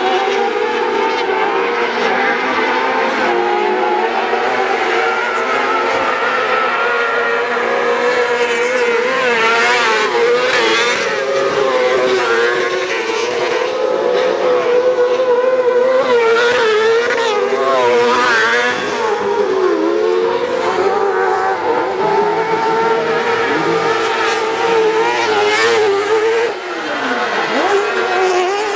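Autocross junior buggies racing on a dirt track. Their engines run at high revs and the pitch rises and falls with throttle changes. The sound swells louder several times as cars pass close by.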